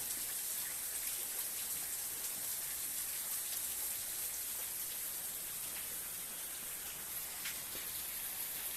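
Steady rain falling: an even hiss with a few single drop ticks standing out.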